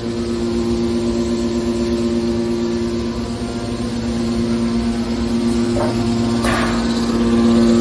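Hydraulic scrap metal baler's power unit running with a steady, loud hum, with two brief scraping noises about six seconds in.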